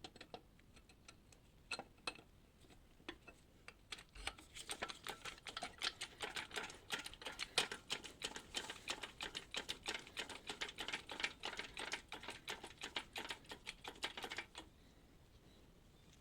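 Rapid metallic clicking and rattling, many clicks a second, from about four seconds in until near the end, with a few scattered clicks before: the lifting strap and its hardware being rigged around the engine for the crane.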